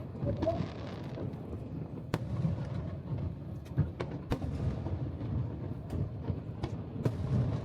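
Aerial fireworks show: shells bursting in irregular sharp bangs and crackles over a low, continuous rumble, the loudest bang a little under four seconds in.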